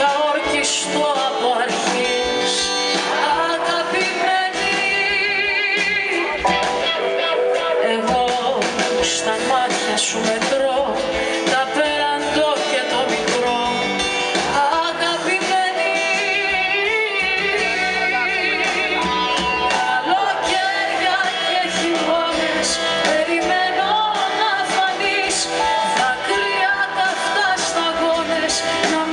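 Live band performance of a Greek song with a woman singing over acoustic guitars, drums and keyboard.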